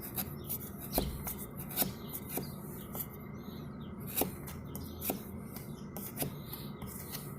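Sharp wood chisel paring cured Wood Epox epoxy filler on a wooden railing: short scraping cuts at an irregular pace of about one a second. The hardened filler cuts like regular wood.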